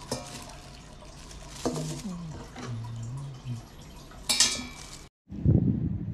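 A stainless steel fry pot and mesh basket being handled, with plastic wrapping rustling and a sharp metal clink about four seconds in. The sound cuts off abruptly about five seconds in, and louder low sound follows.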